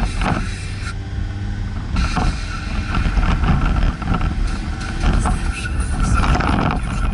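Volkswagen T5 van driving along a town road, its engine and tyre noise heard from inside the cab as a steady rumble, with a few short knocks as it runs over the uneven surface.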